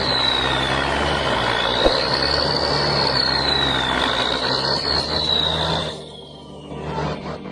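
Heavy machine engine running under load, with a high whine wavering slowly up and down over it; the sound drops away about six seconds in.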